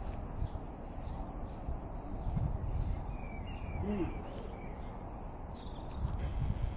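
Outdoor ambience: a few faint bird chirps over a steady low wind rumble on the microphone, with a brief rise in hiss near the end.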